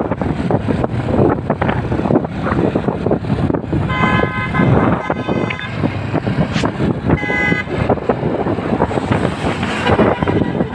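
Road noise of a moving motorbike, its engine and wind on the microphone, with a vehicle horn tooting twice: a longer toot about four seconds in and a shorter one about seven seconds in.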